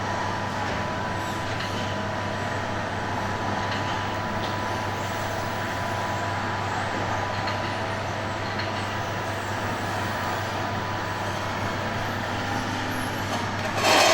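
A steady mechanical drone, even and unchanging, with a constant faint high whine.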